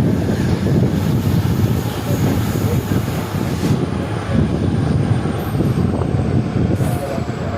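EMD WDP4B diesel locomotive's turbocharged two-stroke engine running hard under acceleration: a loud, steady hum.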